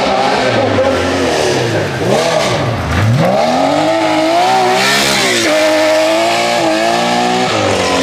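Rally car engine at full throttle on a gravel stage, its pitch falling sharply about two to three seconds in, then climbing again and dropping back in steps as it changes gear. A brief hiss comes about five seconds in.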